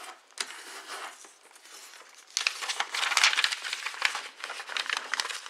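Sheet of origami paper rustling and crinkling as it is handled and folded by hand. It is fainter at first and grows louder and busier from about two seconds in.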